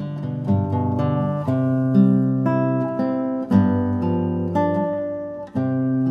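Background music: acoustic guitar playing plucked notes and strummed chords at an easy, steady pace.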